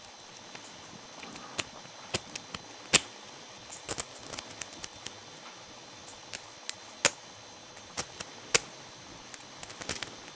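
Small metallic clicks and ticks at irregular intervals as a lock pick and tension wrench work the pins of a small 4-pin brass padlock, with a few louder clicks between them and a sharp click at the very end as the lock opens.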